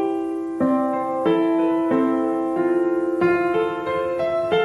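Background piano music: gentle melody and chords, with a new note struck about every two-thirds of a second.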